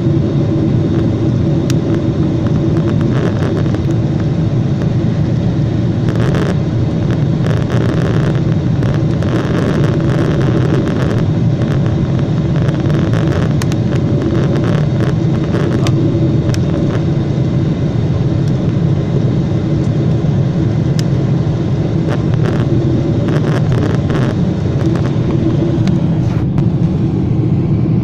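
Steady rumble of a Boeing 747's engines and airflow, heard inside the cabin during the climb after takeoff, with a low hum and a few faint rattles.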